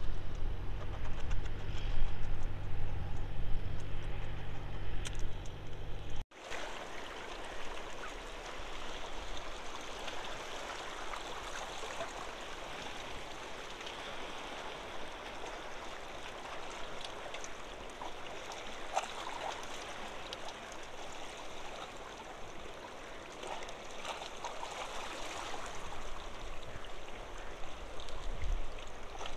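Shallow seawater lapping and trickling among shore rocks, an even, steady wash. For the first six seconds, before an abrupt cut, a louder low rumble with a steady hum covers it.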